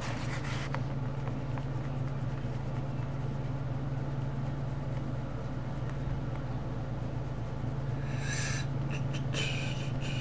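Steady low hum, with short bouts of scratchy, squeaky sound from colouring on paper near the start and again near the end.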